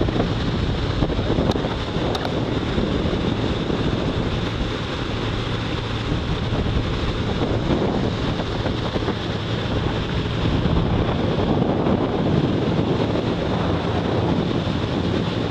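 Wind buffeting the microphone on a moving pontoon boat, over the steady drone of its motor and water rushing past the hull.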